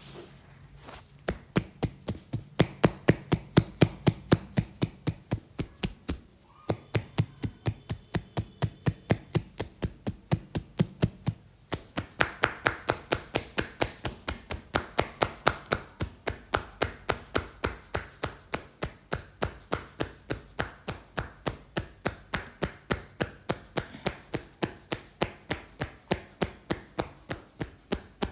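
Hands striking the top of a person's head over and over in percussive head-massage tapping, about four sharp even taps a second. The tapping starts about a second in and breaks off briefly twice.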